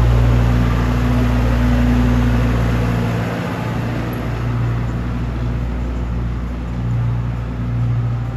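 John Deere utility tractor's diesel engine running steadily as it pulls an arena drag through the sand, a low even hum that eases a little about three seconds in as the tractor moves off.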